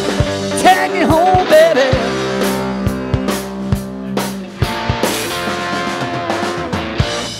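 Live rock band playing: drum kit beating a steady rhythm under electric guitar, with a few pitch-bending lead notes about a second in.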